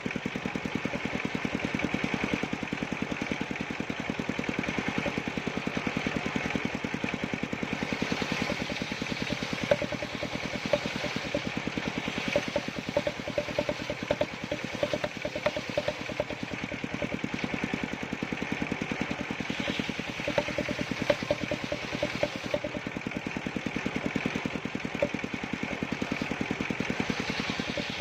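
Engine of a circular-saw wood-cutting machine running steadily, with a rapid, even firing pulse throughout.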